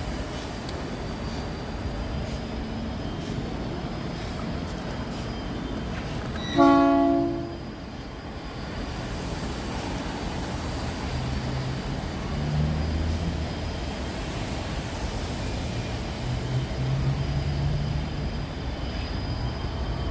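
A train whistle sounds one short blast, about a second long, roughly six seconds in, over a steady low rumble of railway machinery.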